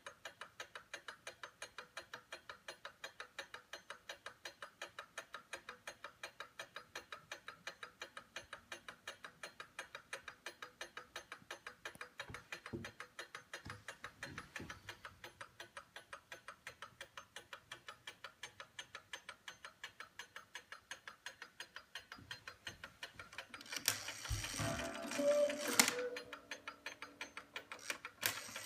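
Black Forest sentry cuckoo clock ticking fast, about four ticks a second, its escapement running free with the pendulum removed. Near the end the strike train whirs and the cuckoo calls once, a falling two-note call.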